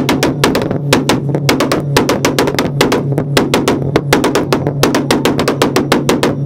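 Turbocharged Subaru WRX STI flat-four held on a two-step rev limiter at a steady pitch, its exhaust firing a rapid, uneven string of loud bangs, several a second.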